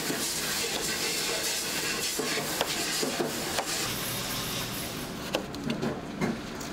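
A chef's knife cutting tomatoes on a plastic cutting board: scattered sharp knocks of the blade on the board, several in quick succession near the end, over a steady background hiss.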